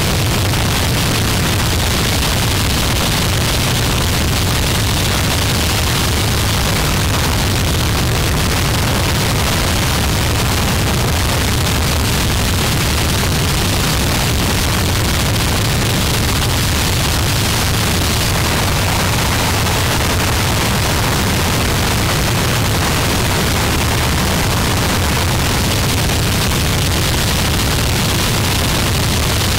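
Harsh noise wall: a dense, unchanging mass of distorted static covering every pitch, heaviest in a deep low rumble, held at a steady loud level with no breaks.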